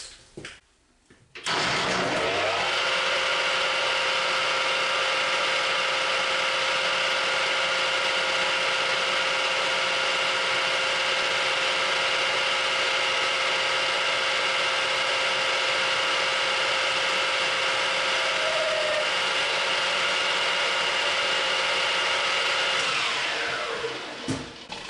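Geared-head metal lathe switched on about a second and a half in, its spindle and gear train running with a steady whine of several tones, then switched off near the end and spinning down with falling pitch.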